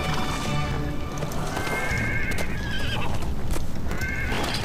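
A horse's hoofbeats with whinnies, over a dramatic music score.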